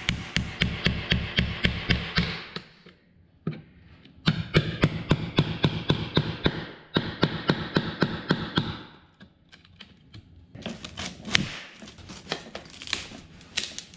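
A screwdriver tapping and chipping at a stapled-down strip of engineered hardwood flooring, in quick, even runs of about four taps a second separated by short pauses. Near the end come scattered sharper cracks and snaps as the splintered wood is pulled out by hand.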